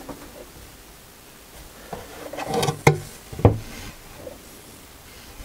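A wooden router fence being handled on a workbench: some rubbing and shuffling of wood, then two sharp wooden knocks about half a second apart, a little past the middle.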